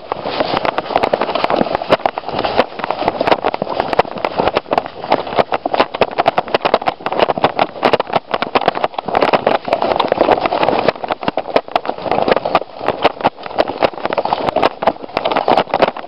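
Airsoft guns firing: many sharp, irregular pops, several a second, over a steady rustling haze.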